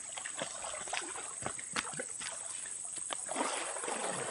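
Pond water splashing and sloshing as people wade and grope through it with their arms, with scattered small splashes and knocks. The splashing grows heavier near the end.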